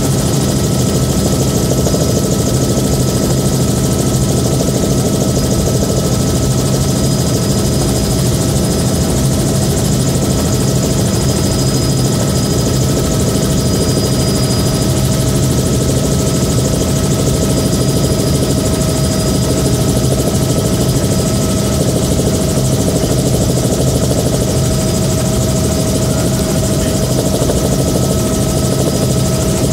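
Bell 206B3 JetRanger in cruise flight heard from inside the cabin with the doors removed: steady rotor and Allison 250 turboshaft turbine noise with a constant high whine, mixed with wind rushing through the open doorways.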